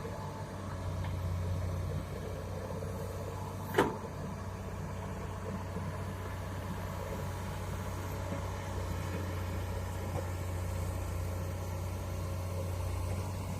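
Heavy diesel machinery engine running steadily with a low hum, with one sharp knock about four seconds in.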